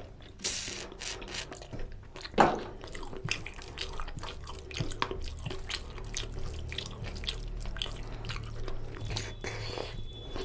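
Close-miked wet eating sounds of a person eating oily curry and rice by hand: a steady run of sticky clicks, smacks and squelches from chewing and from fingers working the food, with a louder smack about two and a half seconds in.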